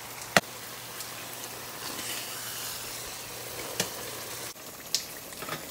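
Tomato and mushroom sauce sizzling in a metal sauté pan, a steady hiss with a few sharp clicks, the loudest about half a second in. The hiss softens a little near the end.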